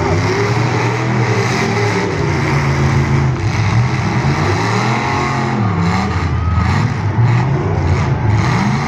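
Several full-size demolition derby cars' engines revving hard together, their pitches rising and falling and overlapping as the cars push against one another in the mud.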